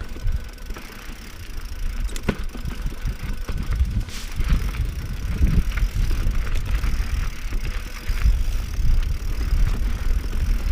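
Mountain bike ridden over rocky singletrack: a steady low wind rumble on the rider's camera microphone, with irregular knocks and rattles from the bike hitting rocks, two sharp ones about two and four seconds in.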